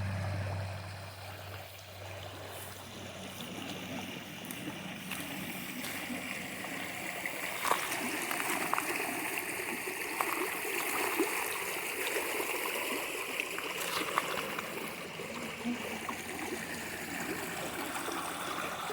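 Small bedrock waterfall in a shallow creek: water running over the rock ledge with a steady rush and many little splashes.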